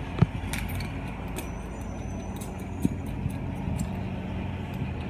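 Steady low mechanical hum, with scattered light metallic clicks and clinks from a carabiner and pulley being clipped onto a rope ascender.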